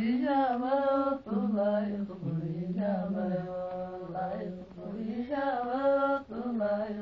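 A single voice singing unaccompanied in long held notes that slide and waver between pitches, in phrases broken by short pauses for breath.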